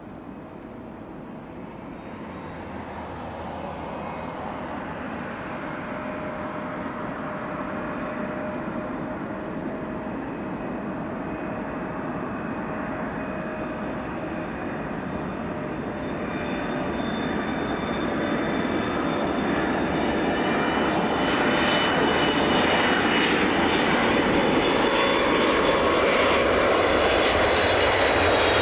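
Jet airliner on approach to land, its engines running with a rushing roar and steady high whine tones that grow louder as it nears.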